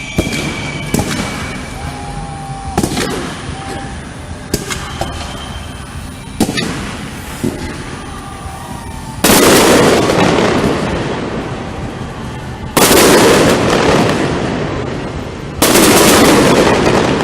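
Aerial fireworks going off: a run of sharp bangs, then three big booms about three seconds apart, each trailing off in a long rolling echo.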